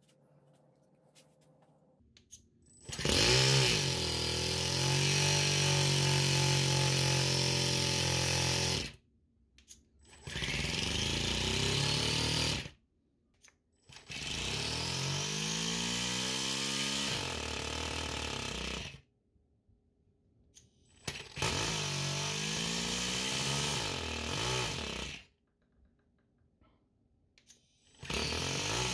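Toyan FS-S100A four-stroke nitro engine being spun by its brushless electric starter in repeated start attempts: four bursts of several seconds each that cut off suddenly with silence between, and a fifth beginning near the end.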